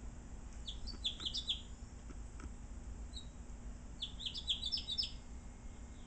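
House finch singing: two short phrases of quick, high notes, about three seconds apart.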